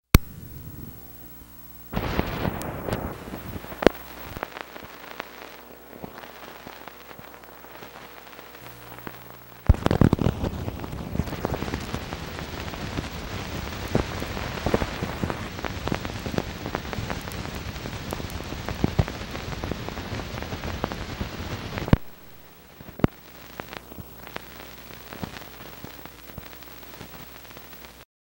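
Dense crackling and popping over a hiss, the surface noise of worn old film. It grows louder about two seconds in and again near ten seconds, drops back a few seconds before the end, and cuts off suddenly at the very end.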